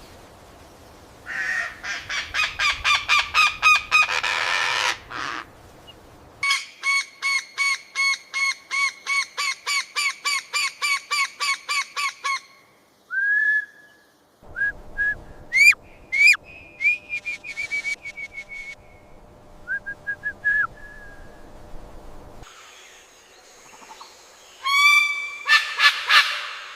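Birds calling in a string of separate recordings joined by abrupt cuts: a fast run of repeated notes, then a steady series of about three to four calls a second for several seconds, then scattered short calls that sweep upward in pitch, and a few loud calls near the end.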